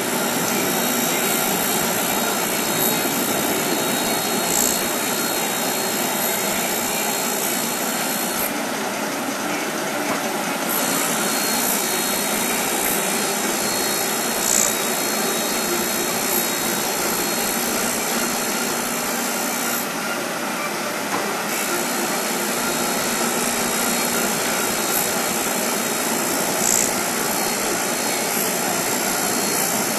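A San Jui straight knife grinder's abrasive wheel running against a long steel knife blade: a steady, dense grinding hiss. Twice, about 9 and 20 seconds in, the high part of the hiss changes briefly.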